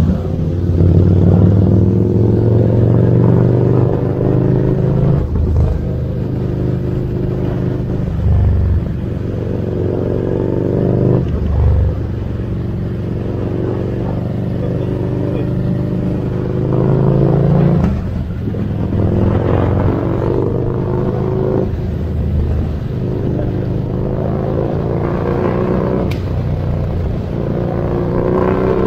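Motorcycle engine pulling under load while riding. Its pitch climbs steadily and then drops at each gear change, about five, eleven, eighteen and twenty-five seconds in.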